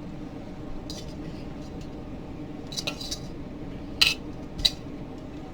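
Utensils clinking against dishes as chicken wings are moved into a bowl: a few sharp clinks, the loudest two near the end, over a steady low hum.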